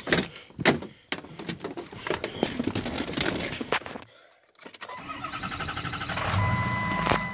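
A pickup truck door latch clicks open, followed by shuffling and knocking as someone climbs into the cab. About five seconds in, with the ignition switched on, a rapid buzzing whir grows louder. Near the end a steady warning tone sounds over it, and then everything cuts off suddenly.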